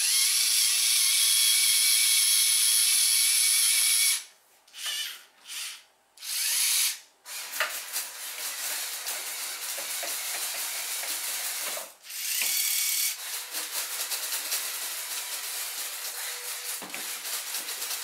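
Lego robot's small electric motors whirring as they drive its arm and frame along toothed gear racks. They run for about four seconds, then in a few short bursts, then in longer runs with a fast clicking of gear teeth.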